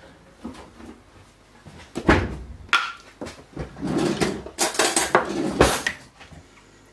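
Kitchen handling sounds: a string of knocks and clatters as containers are moved about, starting about two seconds in and dying away near the end.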